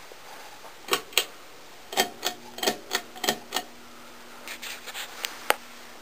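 Pull-chain switches of a Design House Neon ceiling fan clicking in quick runs as the fan is switched on and its neon light off. A steady low motor hum starts about two seconds in.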